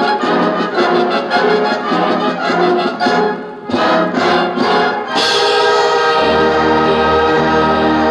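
A 1965 high school band recording, brass-led, playing a passage of short rhythmic notes. About five seconds in, it swells suddenly into a long held chord.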